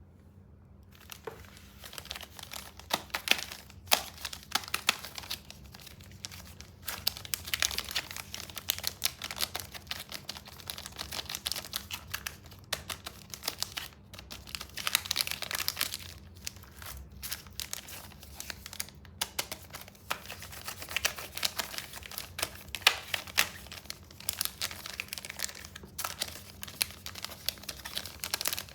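Plastic candy wrappers crinkling and tearing as candies are unwrapped: a dense run of crackles with a few short pauses, over a faint steady low hum.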